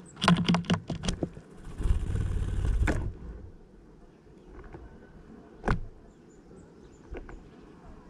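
A bird lands in a feeder made from a plastic bottle: a quick run of sharp knocks on the plastic, then about a second of loud rustling and scrabbling, and later two single sharp taps.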